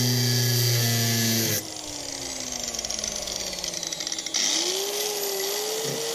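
Electric angle grinder running at full speed against rusted sheet steel, switched off about one and a half seconds in so its whine falls away as the disc spins down. Near the end it is started again and its pitch rises as it winds back up to speed.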